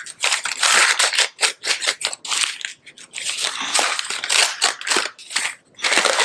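Blue paper masking being crumpled and pulled off a freshly spray-painted metal soil blocker: an irregular crinkling rustle with short sharp crackles and a couple of brief pauses.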